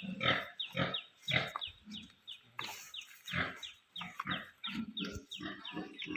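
Yorkshire pigs grunting and squealing, a run of short calls about two a second, many of them dropping quickly in pitch.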